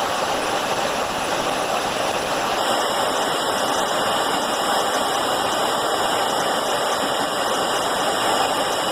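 Steady rushing roar of jet aircraft in flight, heard from inside an aircraft, even and unbroken.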